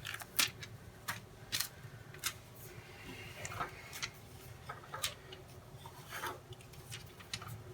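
Light rubbing with scattered, irregular ticks and crinkles: hands peeling and pressing stickers onto a model rocket.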